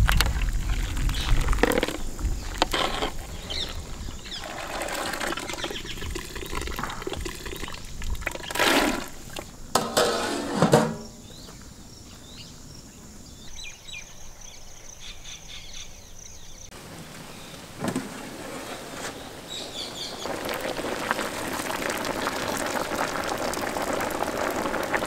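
Water boiling and bubbling in a large aluminium pot of macaroni, with a few knocks and splashes in the first half.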